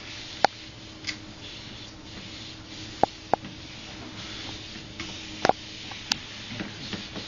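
Sharp, irregular clicks and taps of cats' paws and claws on a treadmill belt and its plastic deck, about six in all, over a faint steady hum.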